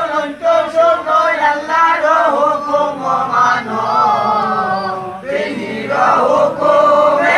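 A crowd of men chanting a devotional song together, with long held notes. The chant breaks off briefly about five seconds in, then resumes louder.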